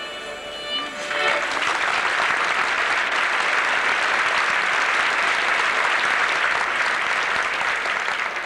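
Live folk dance music ends with a final note about a second in, and the audience applauds steadily.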